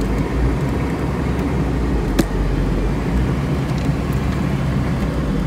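Engine of a 1996 Hummer H1 running steadily with a low, even hum, and a single sharp click about two seconds in.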